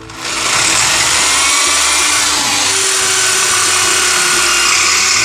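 Handheld electric drill boring through a truck's metal brake backplate, starting about a quarter-second in and then running steadily under load.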